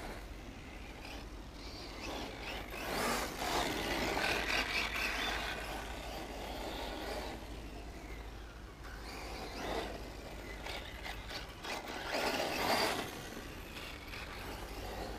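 Radio-controlled off-road cars running around a dirt track, their motor noise swelling as they pass, about three seconds in and again near the end.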